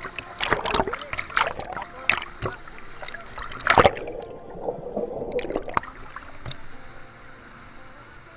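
Water splashing in irregular bursts, with the loudest splash nearly four seconds in, then quieter water sound.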